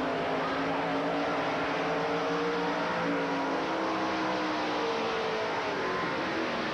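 Dirt late model race cars' V8 engines running at speed as a pack, several engine notes rising and falling over one another.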